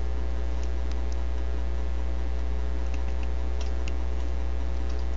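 Steady electrical hum picked up by a webcam microphone, with a few faint scattered clicks.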